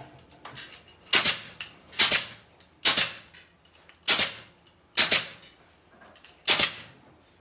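Kamsin K-SC7C 15-gauge pneumatic C-ring gun firing six times, roughly a second apart, as it clamps C-rings onto chicken wire. Each shot is a sharp snap with a short hiss of air.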